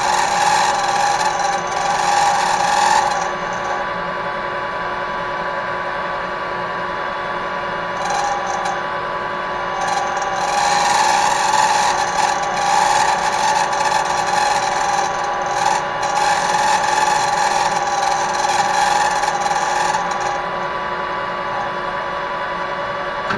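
Metal lathe running while the tool is fed by hand to cut a short taper, the cut coming in stretches, longest from about ten to twenty seconds in. The cut carries tool chatter, a ringing tone over the steady run of the machine, which the machinist puts down to something loose, probably too little rigidity from working off a small stem.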